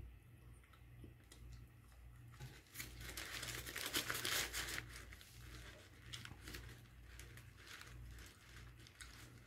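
Paper food packaging crinkling and rustling as it is handled, loudest from about three to five seconds in, with scattered small clicks after it. A steady low hum runs underneath.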